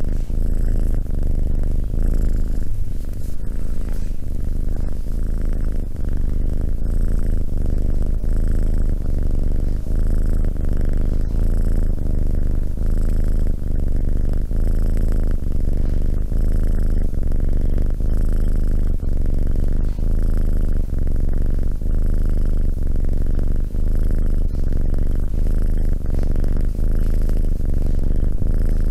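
A tabby kitten purring steadily, loud and close to the microphone. The purr pulses in an even cycle of about one short dip every second.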